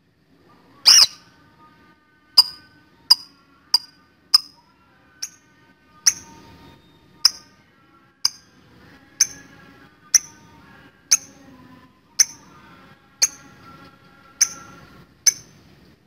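Fischer's lovebird giving short, sharp, high chirps one after another, about one a second: the clipped 'ngetik' call. The first chirp, about a second in, is longer and the loudest. Fainter, softer twittering runs between the chirps.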